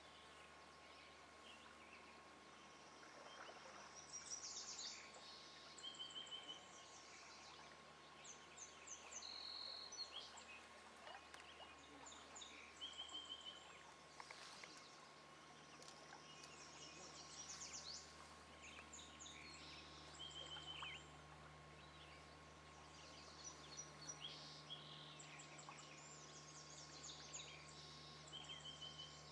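Faint birdsong from several birds singing short phrases of rapid notes. One short trilled phrase comes back about every six or seven seconds.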